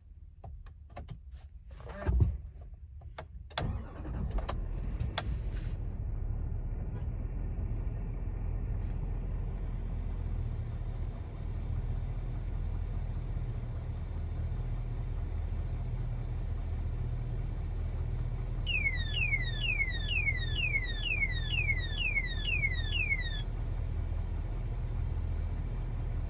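2025 Chevrolet Silverado HD starting after a few clicks, then idling steadily. Well into the idle comes a run of about a dozen quick, high chirps, each falling in pitch, over about four seconds: the unexplained sound that the owner hears at the end of the warning-light check cycle.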